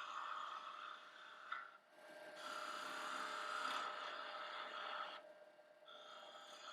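Wood lathe running with a steady whine while a turning tool cuts a shallow cove into a wooden spindle, scraping in three passes with short breaks between them.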